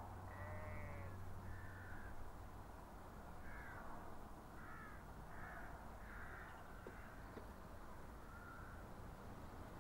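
A crow cawing, about eight short calls spread over several seconds, over a faint steady low hum.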